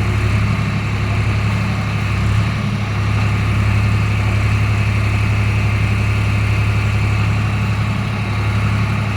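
Swaraj tractor's diesel engine running steadily with an even low drone.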